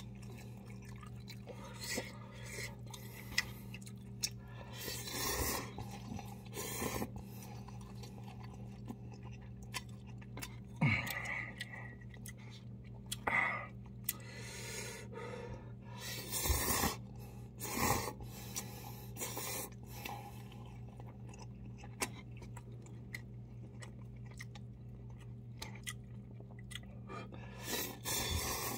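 A man slurping and chewing instant cup ramen noodles, in short irregular bursts, over a steady low hum.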